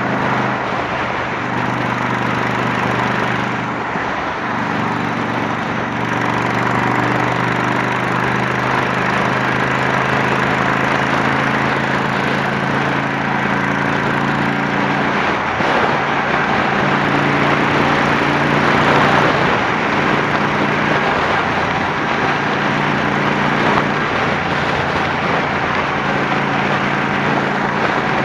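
Honda Shadow 750's V-twin engine running at road speed through a Torbal 3-inch aftermarket exhaust, under heavy wind and road rush. The engine note holds steady but shifts pitch a few times, about four seconds in and again around the middle.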